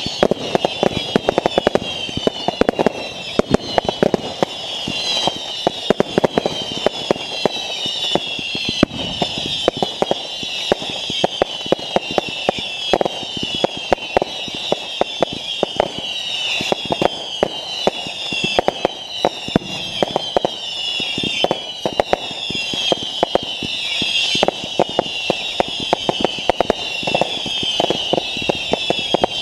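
A barrage of fireworks going off without a break: rapid bangs and crackling overlaid with many high whistles that each fall in pitch, one after another.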